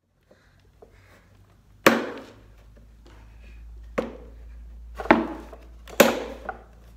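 Sharp plastic knocks and clunks as hands work at the yellow hopper of a Wagner airless paint sprayer while priming it, four loud ones about a second apart, with smaller rattles between. A low steady hum comes in about two seconds in and stays under the knocks.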